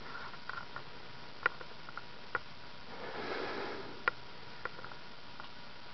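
Vintage Patton ceiling fan with an Emerson K55 stack motor running quietly at about medium speed: a faint steady hum and air hiss, with a few scattered sharp ticks.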